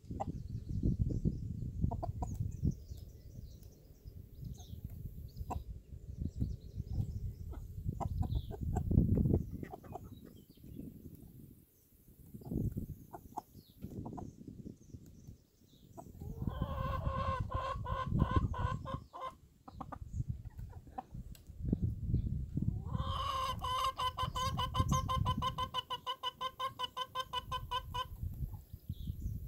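Chickens clucking as they forage, with two long runs of rapid, evenly pitched pulsing calls, one about halfway through and a longer one near the end. Low rumbling noise runs underneath.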